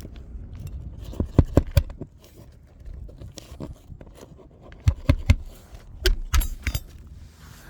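Hammer driving roofing nails into asphalt shingles: three quick runs of blows, the first about a second in and the other two near the end, each of three or four strikes.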